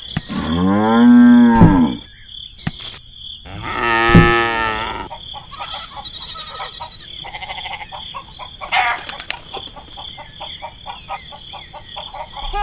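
Cow mooing: two long calls, the first the loudest, followed by fainter, quicker animal calls over a steady high-pitched background tone.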